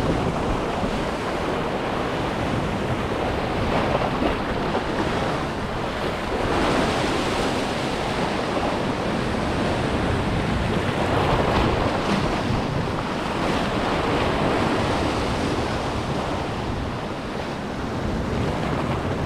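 Sea swell washing and foaming around the rocks below, rising and falling every few seconds, with wind blowing across the microphone.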